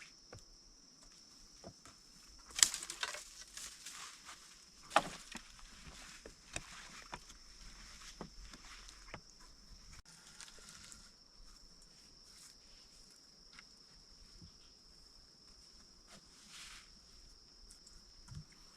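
Insects giving a steady high-pitched drone, with scattered knocks, snaps and rustles of handling, the loudest about two and a half and five seconds in.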